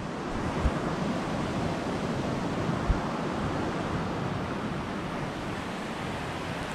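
Steady rushing noise of a creek and wind on the microphone, with two soft low bumps from the camera being handled against a jacket.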